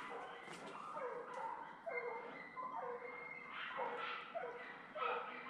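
Jagdterrier hunting dogs barking and yelping in a string of short, high barks, about one or two a second, fairly faint, as the dogs work game in the cover.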